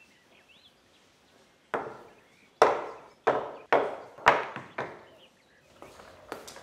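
Filled glass storage jars set down one after another on a wooden tabletop: about six sharp knocks over roughly three seconds.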